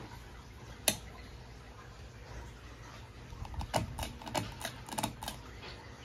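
A River of Goods Halston 52-inch ceiling fan running with a steady low hum. One sharp click about a second in, then a run of irregular clicks and taps in the second half.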